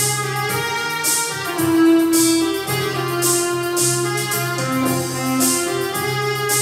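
Electronic arranger keyboard playing a film-song melody over held chords and a sustained bass, with a drum accompaniment beating along.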